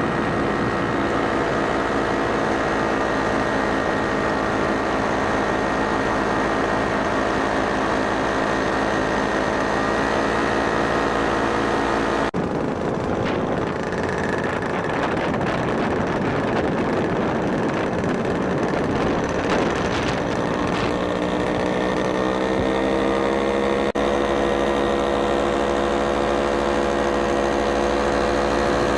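Paramotor engine and propeller running steadily, heard close up from the pilot's harness, with wind rush. The sound changes abruptly twice. In the middle stretch the engine is buried in wind noise, and about two thirds of the way through its pitch rises and then holds.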